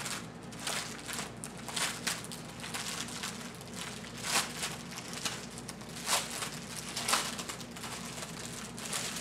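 Crinkling plastic packaging as hands handle a clear bag of heat-sealed foil drill packets from a diamond painting kit. Irregular crackles and rustles throughout, with a few louder crinkles in the second half.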